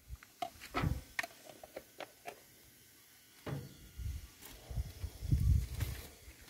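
Short clicks and knocks of steel utensils: a pot lid, a serving spoon and a steel plate being handled. In the second half there are dull low thumps among the clinks.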